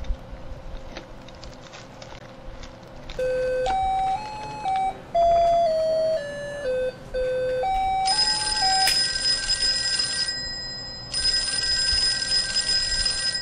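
Over a low steady room hum, a short electronic melody of clean single beeping notes steps up and down for about five seconds. A harsh, buzzing electronic ring follows, sounding twice for about two seconds each with a short gap between.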